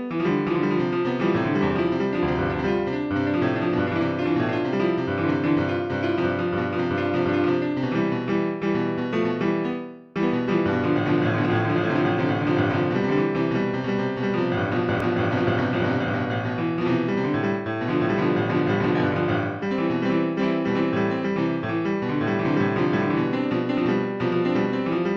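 Background piano music with many notes, which fades briefly about ten seconds in before a new passage starts.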